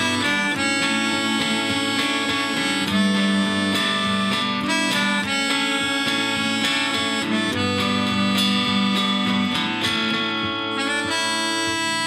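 Instrumental passage: a melodica plays the melody, with an electric guitar playing beneath it.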